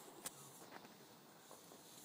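Near silence, with one faint click about a quarter of a second in and a few fainter ticks after.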